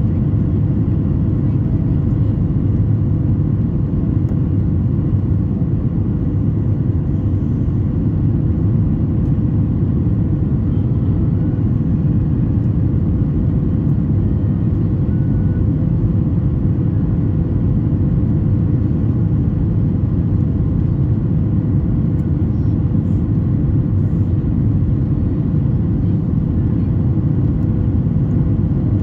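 Steady low cabin rumble of a Boeing 737 MAX 8 climbing out after takeoff, its CFM LEAP-1B engines at climb power and the flaps still extended, heard inside the cabin at a window seat over the wing, with a faint steady hum above it.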